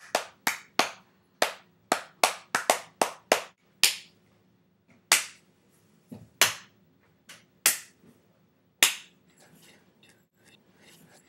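Hand claps beating out a rhythm: a quick, uneven run of about a dozen claps in the first four seconds, then single claps about every second and a quarter, the last one about nine seconds in.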